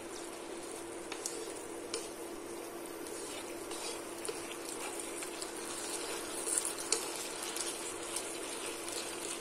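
Beef and vegetable stir-fry simmering and sizzling quietly in a wok while wooden chopsticks stir it, with a few light clicks and scrapes of the chopsticks against the pan.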